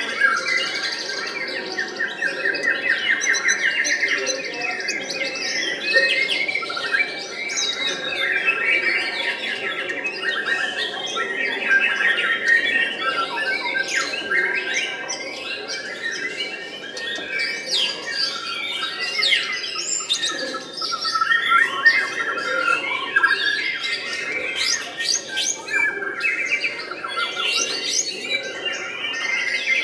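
White-rumped shama (murai batu) singing a long, varied song of rapid trills, whistles and harsh chattering notes, with barely a pause.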